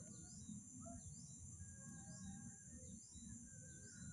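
Faint rural ambience: a steady high-pitched insect drone with a bird's short chirp repeated about once a second, over a low rumble.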